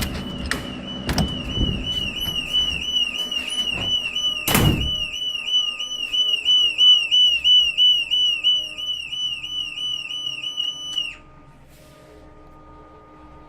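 OS-1 security alarm in a metro train driver's cab sounding a loud warbling electronic siren, about three swoops a second, which cuts off suddenly near the end. A few knocks come early on, with one loud knock about four and a half seconds in, and a faint steady electrical hum is left after the siren stops.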